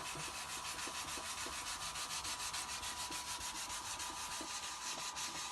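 Hand sanding of a plastic RC truck body shell with sandpaper, quick regular back-and-forth strokes, rubbing the old paint off to prep it for respraying.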